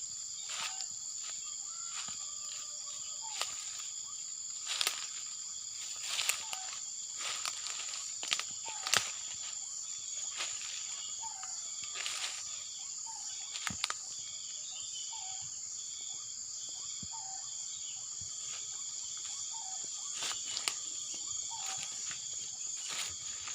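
Steady high-pitched chorus of crickets and other insects. A short call repeats about every second and a half over it, and scattered crackles and clicks come in between, loudest around the middle.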